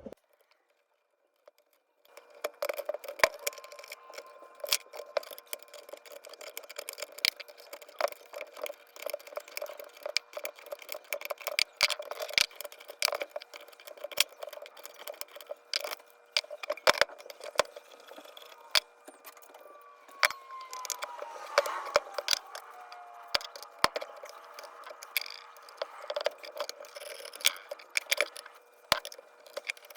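Irregular metallic clinks, taps and rattles of tools and small parts as a hand-crank forge blower is taken apart. A few falling squeaks of metal scraping on metal come about two-thirds of the way through. The clatter starts after about two seconds of near silence.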